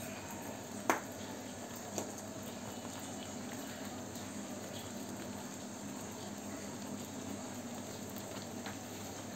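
Mysore pak batter of gram flour, sugar syrup and ghee bubbling and sizzling steadily in a pan on the stove, with a couple of light clicks about one and two seconds in.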